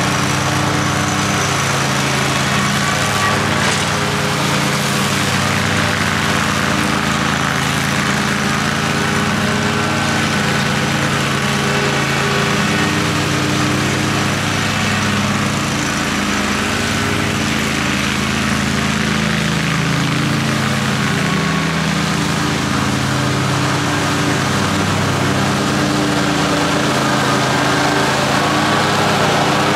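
Zero-turn riding lawn mower with a 60-inch deck running steadily while mowing, its engine hum under a constant rushing noise from the blades. The engine note wavers for a few seconds past the middle.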